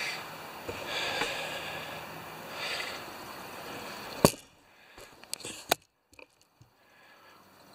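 Old gasoline sloshing in a plastic tub as the tub is handled, with soft rustling. A sharp click about four seconds in, then near quiet with a few small taps.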